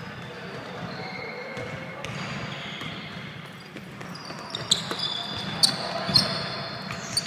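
Basketball play on an indoor court: sneakers squeaking on the gym floor and a basketball bouncing, with three sharp hits in the second half.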